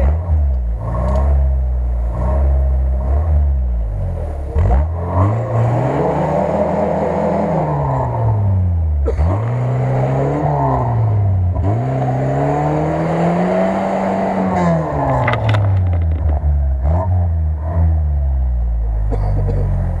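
Lada Niva's engine running low and steady, then revved up and down in three long swells as the car pushes through deep mud ruts, before settling back to low revs.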